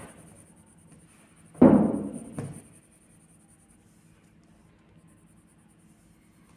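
Coloured pencil scratching on paper at the start, then a heavy thump about one and a half seconds in that dies away over about a second, with a smaller knock just after it.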